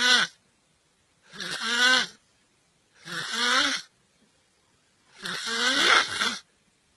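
A person snoring, with a rough, rattling snore about every two seconds: the tail of one right at the start and three more full snores after it.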